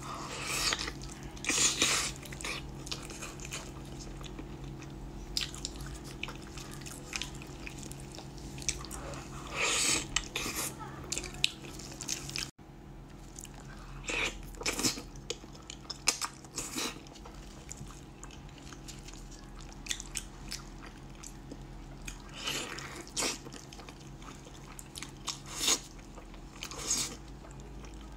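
A person biting and chewing braised pork trotters, with irregular bursts of mouth noises and small clicks, over a steady low hum.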